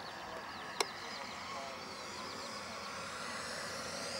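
Small gas-turbine engine of a radio-controlled scale Vampire jet whining in flight, growing a little louder and rising in pitch near the end as the model comes closer. A single sharp click a little under a second in is the loudest sound.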